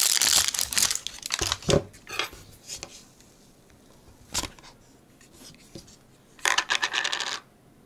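Food packaging being torn open and crinkled: a burst of tearing and rustling in the first couple of seconds, a single sharp click about four seconds in, and another short crinkling burst near the end.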